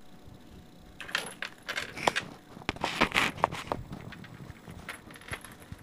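A pocketbook being rummaged by a Java macaque: clinking and rattling of zipper pulls and metal hardware with rustling. The clicks start about a second in, are thickest around the middle, and thin out to a few faint ticks near the end.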